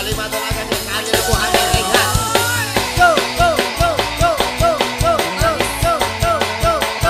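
Live campursari band playing an instrumental passage: a drum kit keeps a steady beat under electric guitar and electone keyboard. From about three seconds in, a short figure of bending notes repeats about twice a second.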